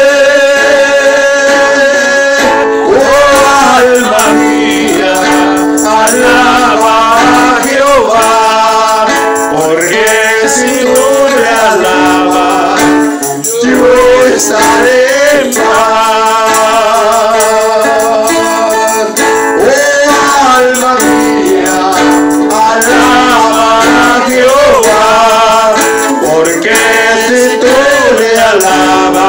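A man singing a gospel hymn through a PA system, with held notes from an accompanying instrument.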